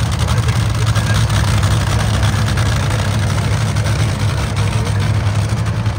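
Dragster engine idling after its burnout: a loud, deep, rough rumble with rapid pulsing that holds steady.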